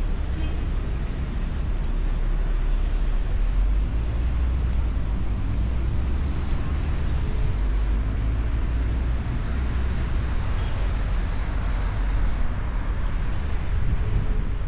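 Steady low rumble of a motorcycle ride: wind buffeting the microphone over engine and road noise, with no clear change in pace.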